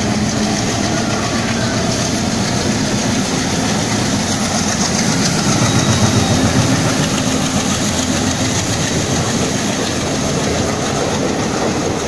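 WDM-3D diesel locomotive running past close by, its engine loudest as it goes by about halfway through, then the passenger coaches clattering along the rails behind it.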